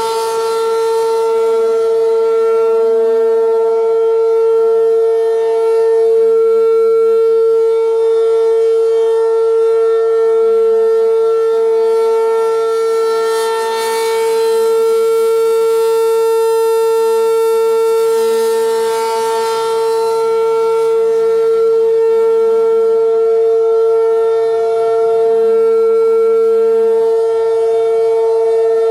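ACA P-15 rotating electromechanical outdoor warning siren sounding a steady, unwavering tone for a tornado drill. The loudness swells and fades slowly as the turning horn sweeps toward and away from the listener.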